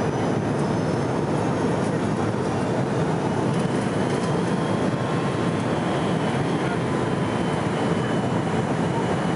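Steady cabin noise of a McDonnell Douglas jetliner on approach, heard from a seat over the wing: an even rush of airflow and engine drone with faint, high, steady whines.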